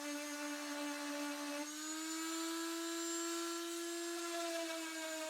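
Small electric sander running with a steady motor whine, its pitch stepping up slightly a couple of seconds in, used to sand the protruding dowel pin edges flush.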